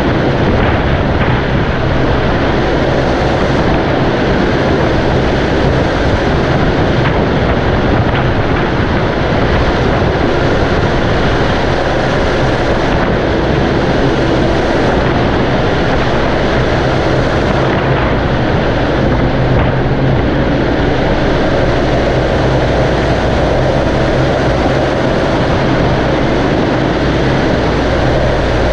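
Tractor engine running steadily at a constant speed, with a dense mechanical noise over a low hum.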